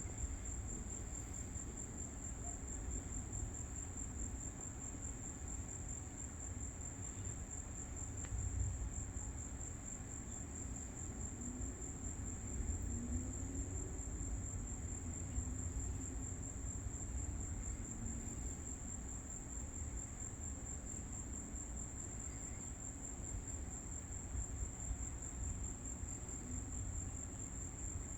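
Crickets trilling in a steady, unbroken high-pitched chorus, over a constant low rumble.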